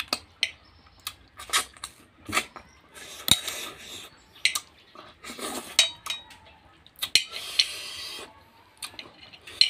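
Eating snail curry and rice by hand from an aluminium bowl: repeated short clinks and scrapes of fingers and snail shells against the metal bowl, mixed with brief mouth noises of eating.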